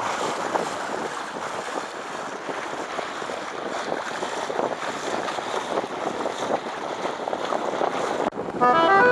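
Bow wave rushing and splashing along the hull of a two-masted gaff schooner under way, with wind buffeting the microphone. It cuts off suddenly near the end, where music comes in.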